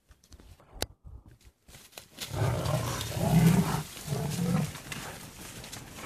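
Leopard growling: three deep, rough growls over about two and a half seconds, starting about two seconds in, after a single sharp click.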